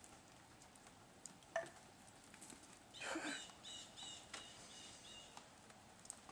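Light rain dripping on a wet stone patio: a faint steady hiss with scattered drip ticks and a sharper tap about a second and a half in. About three seconds in comes a brief louder rustle, then a string of five or six short high chirps over the next two seconds.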